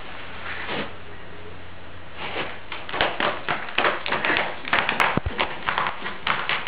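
A rapid, irregular run of short taps or scratches, starting about two seconds in and going on to the end.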